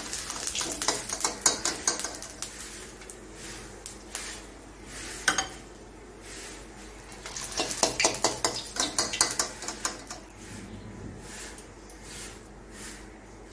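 Metal spatula scraping and tapping in a steel kadai as fried boiled eggs are lifted out of hot mustard oil, with the oil sizzling faintly underneath. The scrapes and clinks come in three clusters.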